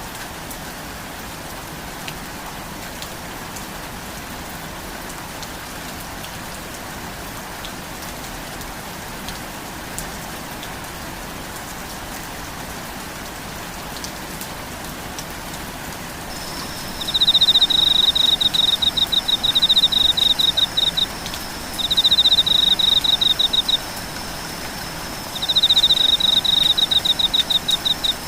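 Steady rainfall hiss. A bit over halfway through, a loud, high, rapidly pulsed insect trill starts, like a cricket's, in bouts of two to four seconds with short gaps, over a faint steady high whine.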